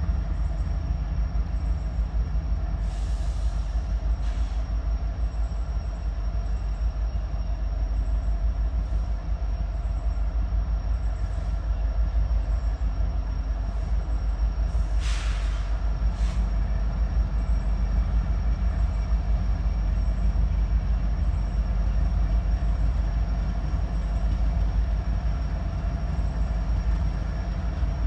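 Diesel locomotives of a freight train led by a Norfolk Southern Lehigh Valley heritage unit running at low speed, a steady low drone as the train creeps forward. Two short hisses come through, a few seconds in and about halfway.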